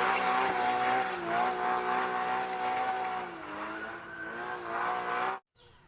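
Racing car engine running at high revs, its pitch held fairly steady with a couple of slight dips, cut off suddenly near the end.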